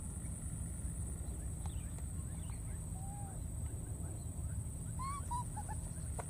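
Baby macaque giving a few short squeaky calls: one about three seconds in, then a quick string of four or five about five seconds in. A steady high-pitched hum and a low outdoor rumble lie under them.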